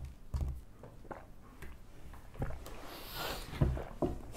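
Quiet handling noise with a few soft knocks and a short hiss about three seconds in, as a man swigs from a plastic Coca-Cola bottle near the end.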